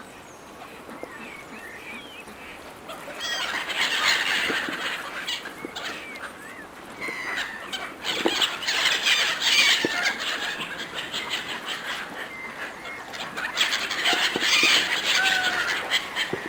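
A flock of gulls squabbling over food: a dense jumble of short, harsh calls and squeals. It gets loud about three seconds in, eases briefly, and swells again from about eight seconds on.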